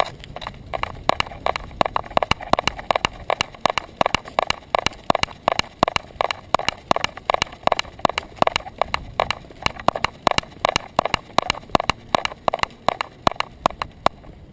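Quick, even clicking of a small terrier's trotting steps on a concrete sidewalk, about four a second, picked up close by a camera strapped to the dog's back; the steps stop near the end as the dog halts.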